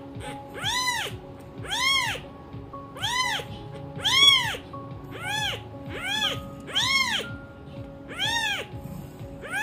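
Cat meowing over and over, about once a second, each meow rising and then falling in pitch, over background music with steady held notes.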